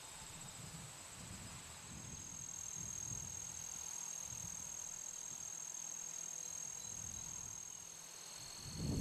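Insects trilling steadily in prairie grass: a continuous high-pitched buzz, joined by a second, slightly lower trill about two seconds in, over faint low rumbling.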